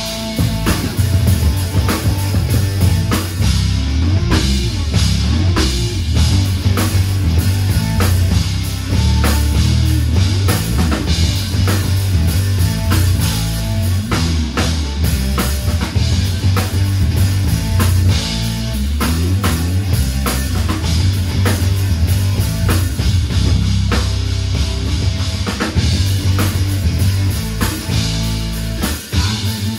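Live rock band playing: a drum kit keeps a steady beat under heavy bass, with guitar and keyboards.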